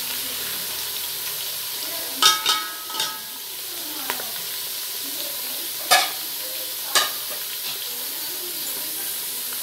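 Sliced onions sizzling steadily as they fry in hot oil in a metal pot, with a few sharp metallic clinks of a spoon against the pot: a cluster about two to three seconds in and two more around six and seven seconds.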